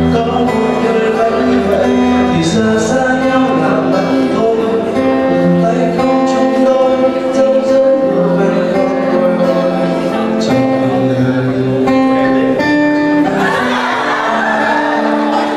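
A song played live on acoustic guitar with a man singing, held melodic notes over the guitar. A rush of noise joins in about thirteen seconds in.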